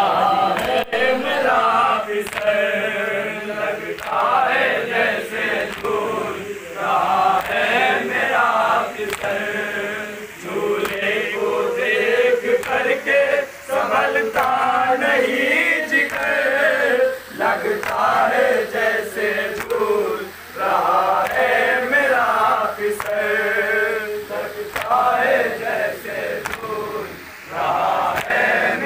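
Men chanting a noha, the Shia lament, in chorus behind a lead reciter singing over a microphone, with hands slapping on chests (matam) in time with the chant.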